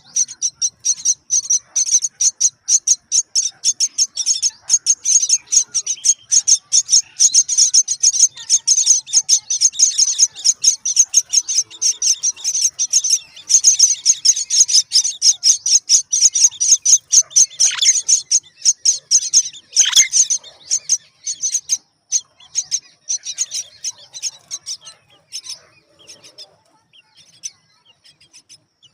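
Indian myna nestlings begging with a fast string of shrill high chirps, several a second, as they are fed. There are a couple of sharper falling calls about two-thirds of the way through, and the chirping thins out near the end.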